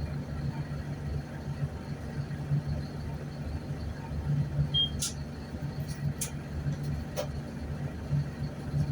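Mercedes-Benz OF-1519 bus's diesel engine running with a steady, slightly pulsing low hum. A brief high beep comes about five seconds in, followed by a few sharp clicks.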